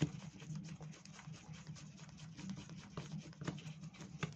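Faint, irregular small scratches and clicks of a screwdriver backing out the air-fuel mixture screw on a 50cc two-stroke scooter carburettor, over a steady low hum.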